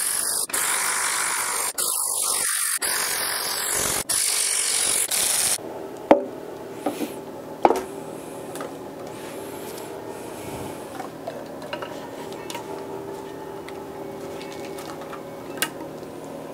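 Cordless electric ratchet running in several short bursts, its motor whirring as it spins out the 10 and 12 mm bolts of an engine's timing chain cover; the tools are running slowly in the cold. After about five and a half seconds it stops, leaving a quieter steady hum with a few sharp metallic clicks and knocks as the aluminium cover is worked off the block.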